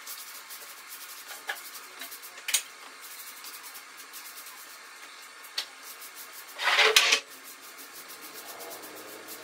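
Rubbing and scraping noises with a few sharp clicks, and one louder rasping scrape about seven seconds in.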